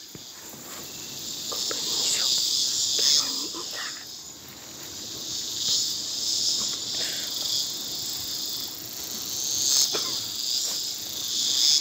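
A chorus of insects, a high shrill buzzing that swells and fades in slow waves about every four seconds.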